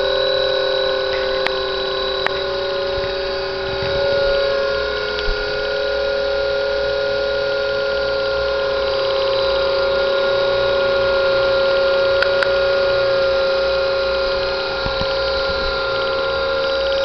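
A steady electrical hum made of several held tones that never change, with a few faint clicks.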